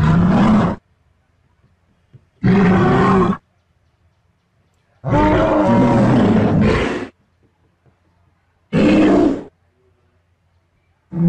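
Dinosaur roar sound effect voicing a Styracosaurus: five separate roars a couple of seconds apart, with a longer one of about two seconds in the middle.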